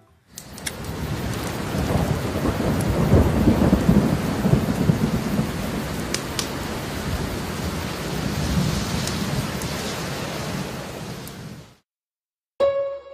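Rain with thunder: a steady hiss of rain under a low rumble that is strongest a few seconds in. It cuts off suddenly near the end, and piano music starts just after.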